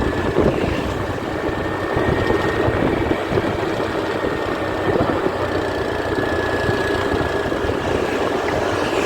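Vehicle engine running steadily with road noise, and a thin high whine held through most of it.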